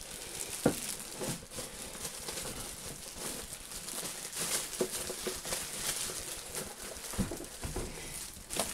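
Clear polythene bag crinkling and rustling in irregular small crackles as it is handled and pulled over an air fryer.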